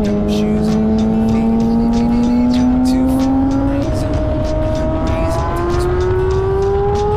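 Sport motorcycle engine running hard with wind rush, its pitch climbing steadily and jumping higher twice, about four seconds in and again a second and a half later.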